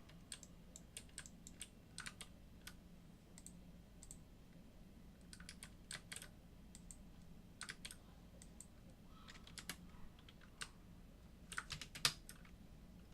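Computer keyboard keystrokes and clicks, quiet and scattered in small irregular clusters, the sharpest near the end, over a faint steady low hum.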